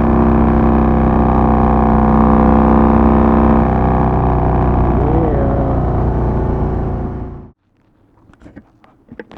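Harley-Davidson Twin Cam V-twin engine of a 2006 Softail Deluxe running steadily while riding along. It cuts off abruptly about three-quarters of the way through, leaving quiet with a few faint clicks.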